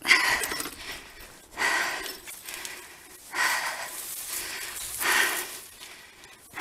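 A person breathing hard, with four loud breaths about every second and a half to two seconds.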